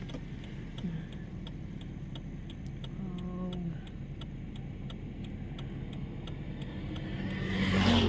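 Moving car heard from inside the cabin: a steady low road rumble with a faint regular ticking, about three ticks a second, and a brief pitched tone about three seconds in. The noise grows louder near the end.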